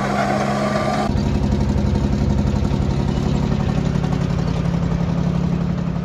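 Allis-Chalmers crawler tractor's Detroit Diesel two-stroke engine running. About a second in the sound cuts from a steady engine hum to a closer engine sound with a fast, even run of firing pulses.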